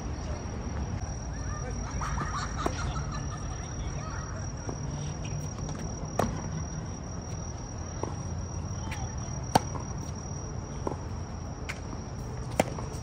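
Tennis balls struck by racquets in a rally: sharp pops roughly every three and a half seconds, with fainter ball bounces between. A steady high-pitched insect trill runs behind them.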